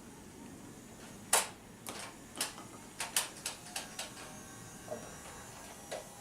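Plastic clicks and knocks from a Nerf N-Strike toy blaster being handled. A sharp click comes about a second in, followed by a run of lighter clicks and two more near the end.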